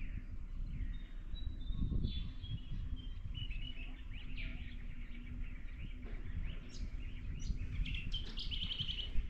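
Wild birds chirping and calling: many short chirps and whistles, with a quick repeated trill near the end, over a low rumble of wind on the microphone.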